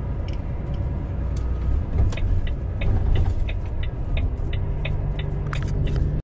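Heavy truck driving on the highway, heard inside the cab: a steady low engine and road rumble, with light ticks at about three a second from about two seconds in.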